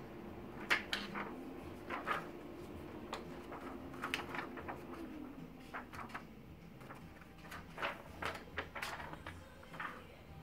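A printed laser transfer-paper sheet rustling and crackling as it is lifted off a laser printer's output tray, held up and laid back, with short sharp crackles scattered throughout. Under it, a steady hum from the UniNet iColor 540 printer drops in pitch and fades out about five seconds in, as the printer winds down after printing.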